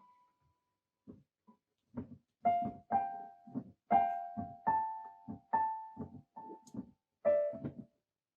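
Piano or electric keyboard playing a short, uneven run of notes and chords, starting about two seconds in and stopping near the end.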